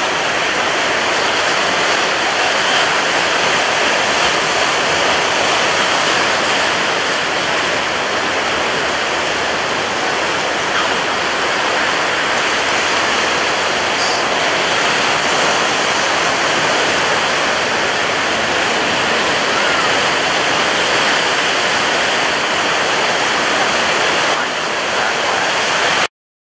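Storm-whipped sea: a steady rushing hiss of breaking waves and wind-driven spray, which cuts off abruptly near the end.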